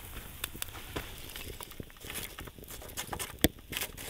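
Wood fire burning in a rocket stove, crackling with irregular sharp pops, the loudest about three and a half seconds in.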